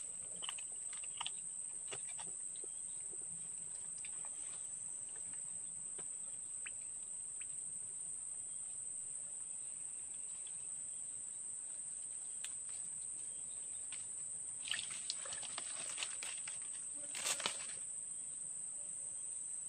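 A steady, high-pitched insect chorus drones throughout. Brief rustling and handling noises come twice in the second half.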